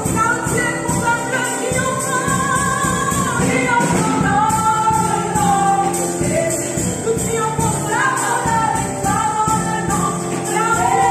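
Women's voices singing a French gospel praise song together over keyboard accompaniment on a Yamaha Motif XS6, with a steady beat of high percussion.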